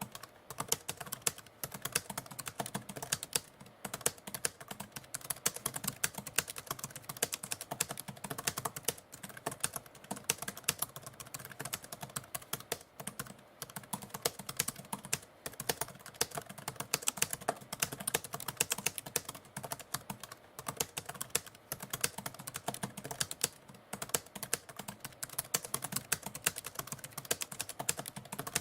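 Typewriter keys clacking in rapid, continuous runs of strokes, with brief pauses every few seconds.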